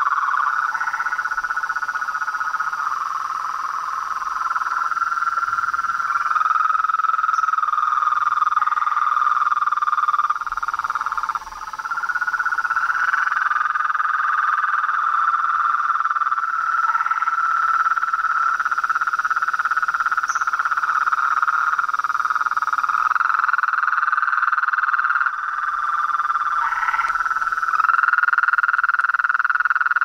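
A dense chorus of frogs and toads calling, many overlapping trilling calls merging into a steady, high-pitched drone, with short separate chirps from other frogs standing out several times. The mix shifts abruptly a few times, briefly quieter about ten seconds in.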